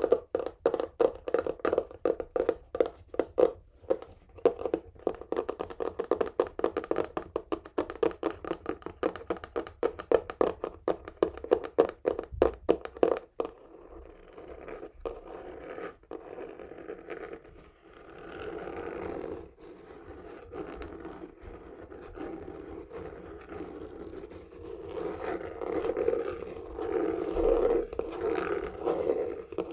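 Fingernails tapping rapidly on a textured cardboard box for about the first half, then switching to continuous scratching across its surface, which grows louder near the end.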